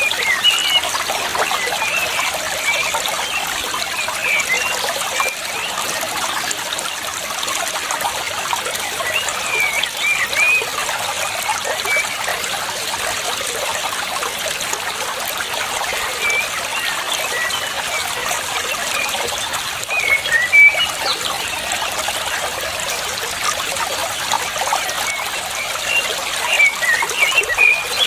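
Water trickling and running steadily, with short high bird chirps in scattered clusters over it.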